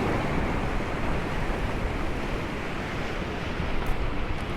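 Sea waves washing and breaking against the seafront, a steady rushing noise, with wind buffeting the microphone.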